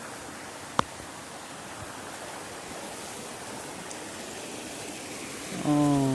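Steady rushing outdoor noise, with a single sharp click just under a second in. A person's voice starts near the end.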